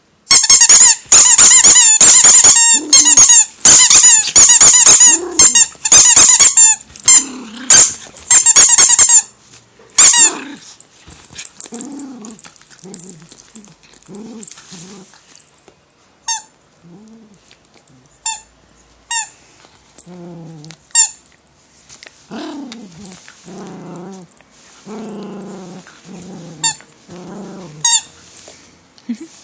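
A dog chewing a squeaky bread-shaped plush toy: rapid, loud squeaks for about the first ten seconds, then single squeaks spaced a second or more apart, with low growling between them.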